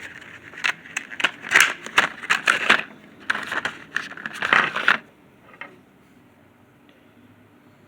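Small stubby screwdrivers and their plastic holder being handled: a quick run of clicks and rattles for about five seconds, then only a faint hum with one last soft click.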